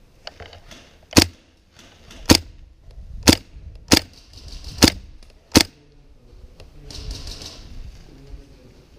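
Gas blowback airsoft gun firing six single shots at an uneven pace, each a sharp crack, about a second apart, then a soft rustle.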